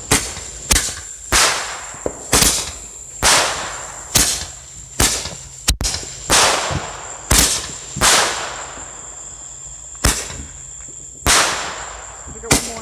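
Fireworks going off in a rapid, irregular string of about fifteen sharp bangs, each with a short echoing tail, with a brief lull about two-thirds of the way through.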